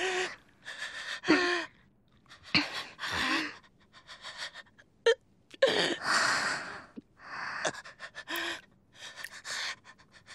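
A voice gasping and panting in a string of short, breathy bursts, with quiet gaps between them and a few sharp clicks about halfway through.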